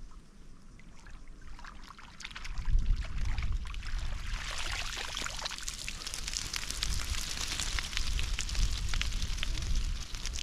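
Water pouring and dripping from a mesh yabby net as it is hauled out of a dam, starting about two and a half seconds in and going on as a dense patter of drops.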